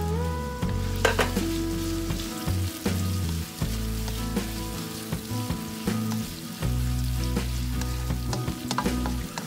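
Chopped onion and garlic sizzling in hot oil in a nonstick wok while a plastic spatula stirs and scrapes them, with scattered sharp clicks of the spatula against the pan.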